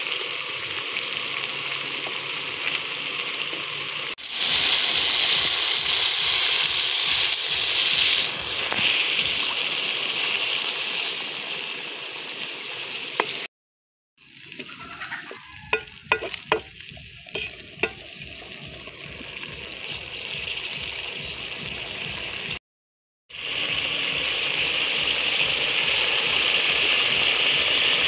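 Chicken curry sizzling and bubbling in a pot while it is stirred with a wooden spatula. In the middle there are a few sharp scrapes and knocks of the spatula against the pot. The sound cuts out briefly twice.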